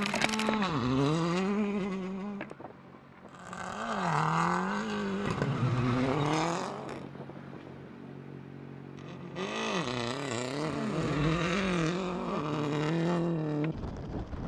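A motor vehicle engine revving hard, its pitch climbing and dropping again and again, with quieter dips about three seconds in and again around the middle.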